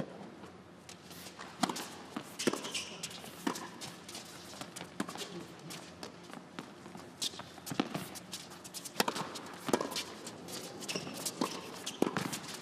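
Tennis rally on an indoor hard court: a serve, then irregular sharp pops of racquets striking the ball and the ball bouncing, with players' footsteps between the hits.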